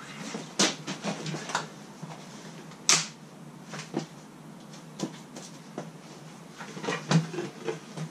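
Irregular knocks, clicks and rustles of a person sitting down on a wooden stool and shifting on it, about a dozen over several seconds. The sharpest come about half a second in, about three seconds in and near the end.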